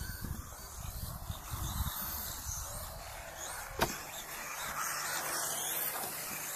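Electric 1:10-scale radio-controlled rally car running through the course, its small motor and tyres giving a steady hiss, with one sharp knock about four seconds in.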